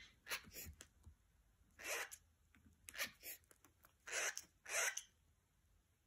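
Cockatiels hissing in a series of short, breathy bursts, with no whistled notes. The longest hisses come about two seconds and about five seconds in. It is a territorial warning hiss.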